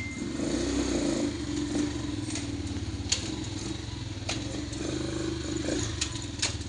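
250cc ATV engine idling steadily, with a few sharp clicks about three, four, six and six and a half seconds in.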